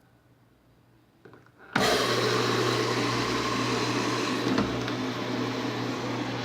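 Enxuta washing machine clicking on about a second and a half in, then running with a steady hum and a loud rushing noise.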